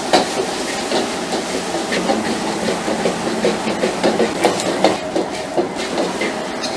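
Food sizzling and crackling loudly on a very hot cooking surface, with a dense run of small clicks and knocks; it cuts in suddenly at the start.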